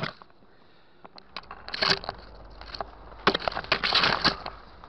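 Dry leaves and twigs crunching and snapping underfoot while pushing through brush, in irregular clusters of sharp crackles that are densest in the second half.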